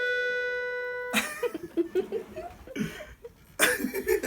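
Accordion holding the lower note of a two-note falling phrase, cut off about a second in. Irregular breathy, sputtering sounds follow, loudest near the end.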